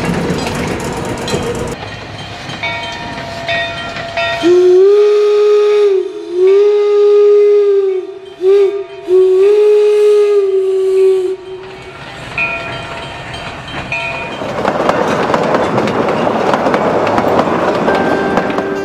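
Train horn sounding the grade-crossing signal, long, long, short, long, each blast bending up at the start and down at the end. Fainter horn chords come before and after it, then the rushing rumble of a passing train.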